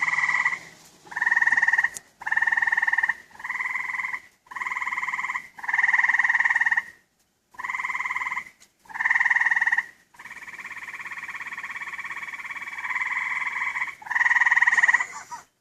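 Loud buzzing trills from calling animals, each about a second long and repeated with short gaps. From about ten seconds in, one trill holds steady for several seconds before the shorter pulses resume.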